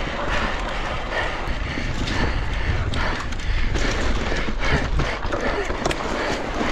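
Electric mountain bike ridden over rough ground: steady rumble of tyres and wind on the microphone, with frequent knocks and rattles from the bike jolting over bumps.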